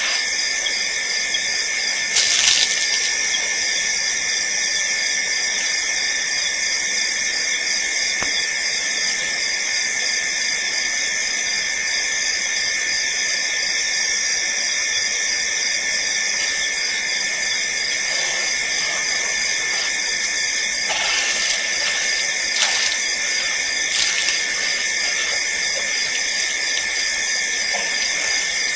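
Steady, high-pitched night insect chorus of crickets calling continuously at the waterhole. A few brief louder knocks or splashes cut through it, once about two seconds in and a few times near the end.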